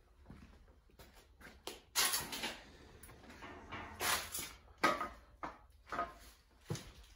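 Scattered light knocks and scuffs, with two short rushing hisses about two and four seconds in.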